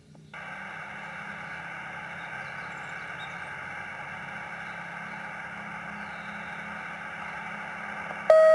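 Municipal disaster-prevention radio loudspeaker switching on suddenly, then a steady hiss from the open line. Near the end the first clear electronic tones of the chime begin.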